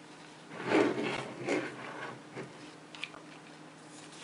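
Handling noise from a shotgun microphone's plastic shock mount being moved over a DSLR camera body: a loud rubbing scrape about a second in and a second shorter one just after, then a lighter knock and a sharp click near the end.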